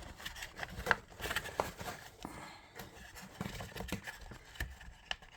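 Handling of plastic walker parts and seat fabric: scattered light clicks, knocks and rustling as the seat's clips are pushed into place.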